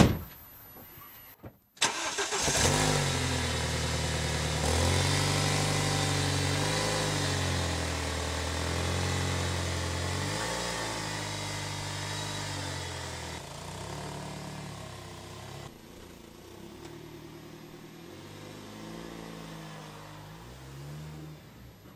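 A single sharp knock, then about two seconds in the 2008 BMW 318i's 2-litre N43 four-cylinder petrol engine starts and runs, its revs rising and falling several times, then growing quieter as the car pulls away.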